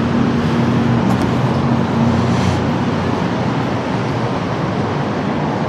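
Steady city street traffic noise, with a low engine-like hum that fades out after about two seconds.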